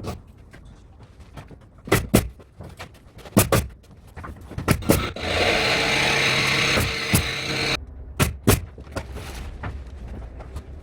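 Sharp knocks and snaps from carpentry work on timber framing, coming singly and in pairs at irregular intervals. A power tool runs steadily for about two and a half seconds in the middle.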